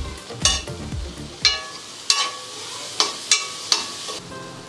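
A steel spoon scraping and clinking against an aluminium kadai while stirring chicken pieces as they fry, about six sharp knocks over a low sizzle.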